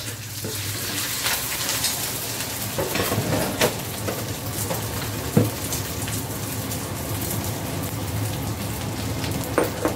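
Beaten egg and vegetables sizzling in a hot stainless steel wok, with a few sharp knocks and scrapes of a metal ladle against the wok, over a steady low hum.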